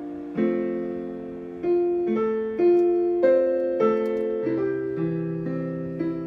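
Electronic keyboard playing a slow run of piano chords, each struck and left to fade before the next.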